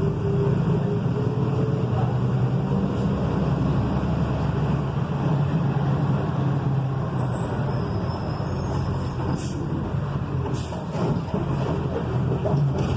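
Volkswagen 17.210 truck's diesel engine running steadily, with a few short hisses from the air system in the second half.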